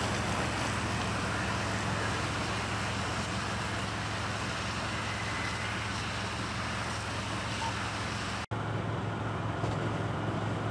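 Fire engine running steadily, a constant low engine hum under a steady hiss. The sound drops out for an instant about eight and a half seconds in.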